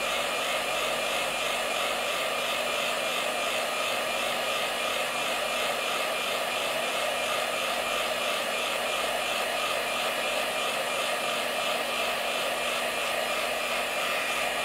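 iTeraCare handheld terahertz wand's built-in fan blowing steadily on its lowest speed setting. It makes an even, hair-dryer-like airy sound with a few faint steady tones.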